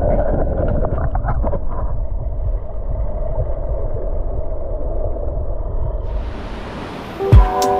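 Muffled, low rumble of moving stream water heard with the microphone submerged. Background music fades out at the start, and music with a steady beat comes in near the end.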